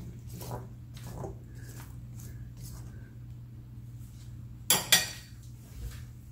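Metal spatula tapping lightly against a stainless steel sauté pan of drumstick pieces, then two sharp metal clinks close together about five seconds in as the spatula is set down. A steady low hum runs underneath.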